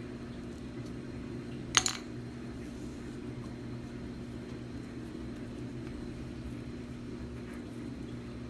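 Steady low electrical or fan-like hum, with one sharp double knock a little under two seconds in.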